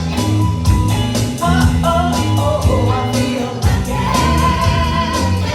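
Upbeat country-rock band music with a steady drum beat and bass under a melodic lead line, playing between sung verses.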